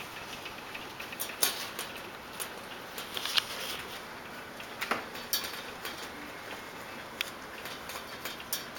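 Scattered soft taps and clicks, a few of them sharper, from a young puppy moving about and nosing up close to the camera.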